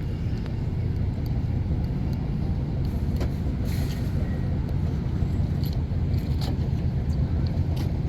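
Car road noise heard from inside the cabin: a steady low rumble of engine and tyres while driving, with a few faint clicks.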